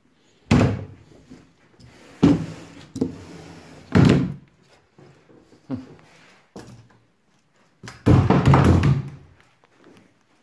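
Panelled cupboard doors being opened and shut: three sharp thuds close to two seconds apart, then a longer run of knocks and bangs near the end.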